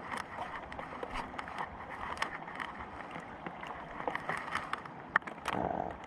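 Raindrops tapping irregularly and lightly on a boat, over a steady hiss of rain.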